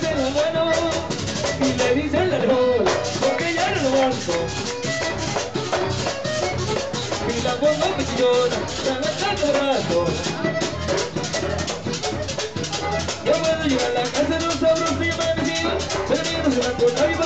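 Live vallenato-style band playing: an accordion melody over a steady scraped guacharaca rhythm and a hand drum.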